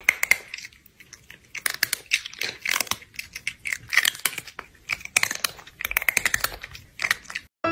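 Loud, crunchy chewing close to the microphone: someone eating with irregular clusters of crunches and smacks. It stops abruptly near the end.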